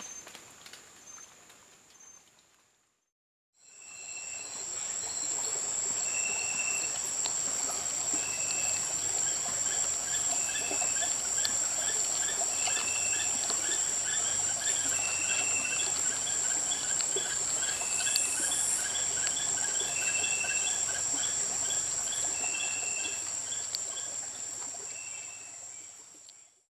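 Night insect chorus: a steady high trill with other insects calling in fast pulses, and a short call repeating about every two and a half seconds. It cuts out briefly about three seconds in, comes back fuller, and fades out at the end.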